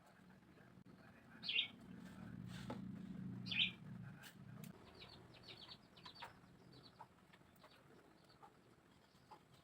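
A bird chirping twice, with a low coo-like call running for a couple of seconds between and after the chirps, then a scatter of quick, light ticks.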